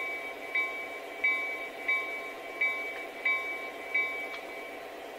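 The bell of a Lionel Legacy SD70ACE model diesel locomotive's sound system, played through its small built-in speaker. It rings about seven strikes at roughly one and a half a second, then stops shortly before the end, over the steady sound of the diesel engine idling.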